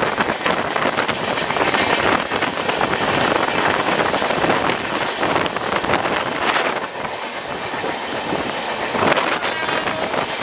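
Express train running at speed, heard from an open coach doorway: wheels rolling and clattering rapidly over the track, with wind rushing past. It dips a little in level after the middle, then swells again near the end.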